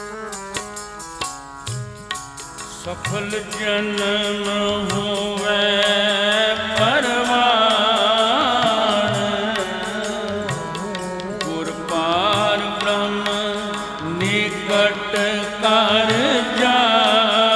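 Sikh kirtan music: a harmonium melody in clear stepped notes with tabla strikes underneath, and a sung melody with gliding, ornamented pitch joining about three seconds in.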